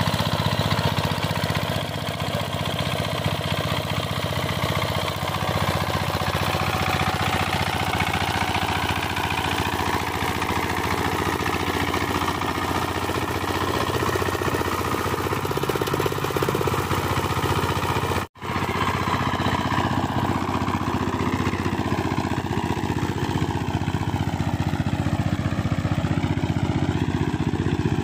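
Single-cylinder diesel engine of a two-wheel power tiller running steadily under load as it works through mud, with one split-second gap about two-thirds of the way through.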